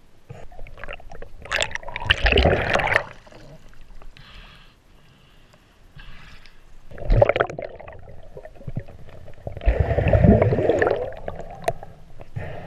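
Water gurgling and sloshing around a snorkeler's camera, underwater and at the surface, in three loud bursts: about two seconds in, about seven seconds in, and about ten seconds in.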